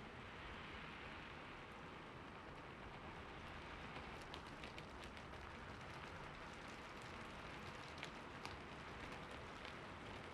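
Light rain falling steadily, a soft even hiss with scattered individual drops ticking, more of them after the first few seconds.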